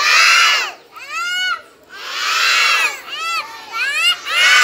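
A group of young children shouting together in high-pitched voices, loud calls repeated about once a second like a chant.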